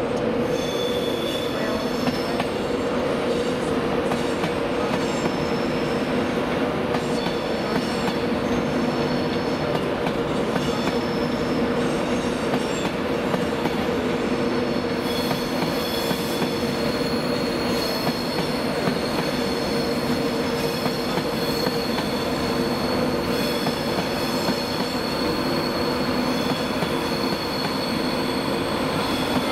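Virgin Trains Class 390 Pendolino electric train running slowly past, its wheels squealing in high tones that grow stronger from about halfway, with occasional clicks over the rail joints and a steady low hum underneath.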